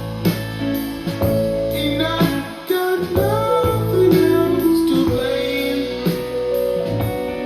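A pop song playing: guitar over a steady drum beat, with a sliding melodic line in the middle.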